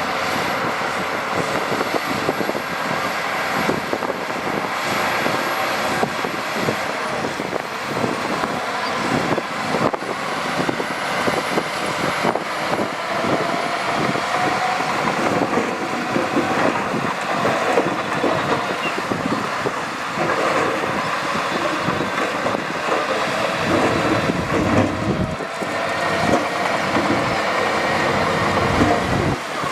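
Heavy diesel earthmoving machinery running under load, with a steady, dense rattling clatter throughout.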